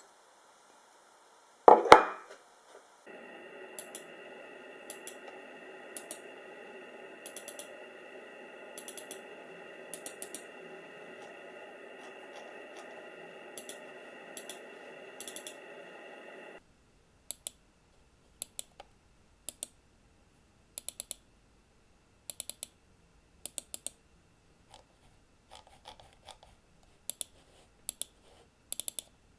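Panasonic Lumix FZ1000's internal mechanism whirring steadily with several fixed pitches, the constant grinding noise the camera's built-in microphone picks up while it is on. It stops suddenly about 16 seconds in, leaving sharp clicks about once a second; a single loud knock comes about two seconds in.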